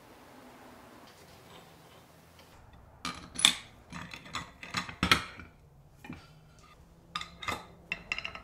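Faint room noise, then from about three seconds in a run of irregular light clicks and taps as aluminium extrusion and small metal jig parts are handled and marked on a workbench.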